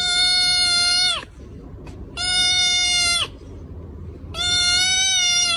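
An animal calling three times, each a long, loud, even-pitched cry of about a second that drops in pitch at the end, about two seconds apart.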